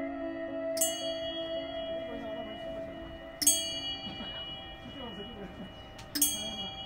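Three bell strikes about two and a half seconds apart, each ringing on and slowly fading, over a sustained ambient music drone.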